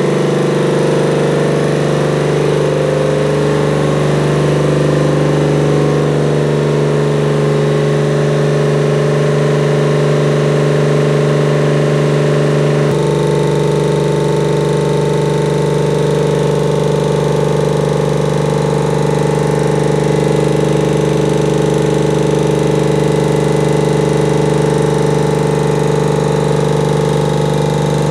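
Tanabe H-373 marine main air compressor, a water-cooled reciprocating piston compressor, running steadily under oil pressure with an even mechanical hum. Its tone shifts abruptly a little under halfway through.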